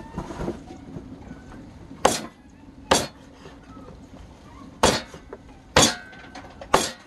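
A large kitchen knife chopping raw chicken on a round wooden chopping board: five sharp chops, the first two about a second apart starting around two seconds in, then three more about a second apart in the second half.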